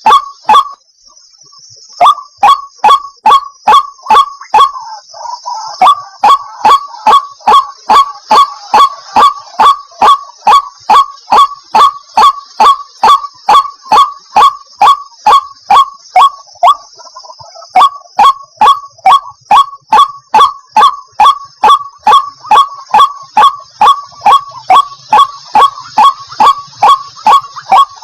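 White-breasted waterhen calling: a loud, monotonous series of short nasal 'kuok' notes, about two to three a second, pausing briefly twice. A faint, steady high-pitched hiss runs underneath.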